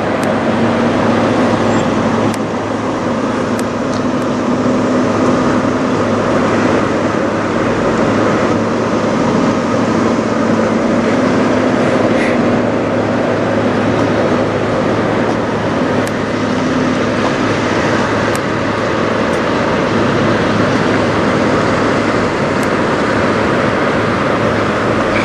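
Diesel engine of a Western Star semi tractor idling steadily.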